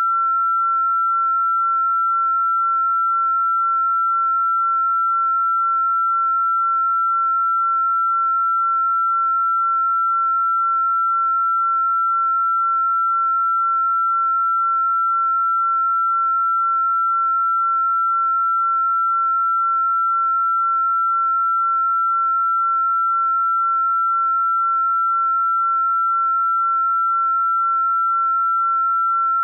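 A single electronically generated pure sine tone, held perfectly steady at one high pitch a little above 1 kHz, with no change in pitch or loudness.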